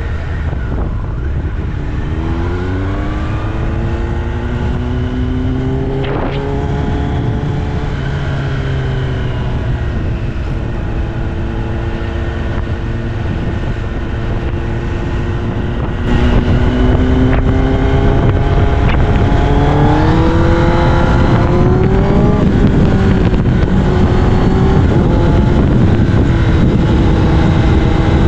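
Kawasaki ZX-10R's inline-four through an Austin Racing aftermarket exhaust, heard from on the bike as it accelerates and cruises: the engine note rises in pitch twice, about two seconds in and again a little past halfway, then holds steady. Wind rumble on the microphone runs underneath and gets louder about halfway through.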